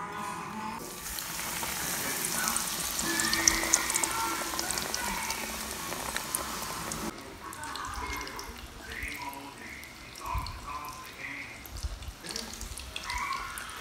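Panko-breaded pork cutlet (tonkatsu) deep-frying in hot oil: a dense crackling sizzle from about a second in, cutting off suddenly about seven seconds in. After that, a quieter stretch of soft handling sounds with a television's voices in the background.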